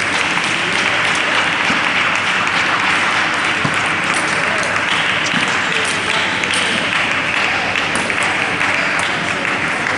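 Spectators applauding steadily between points of a table tennis match.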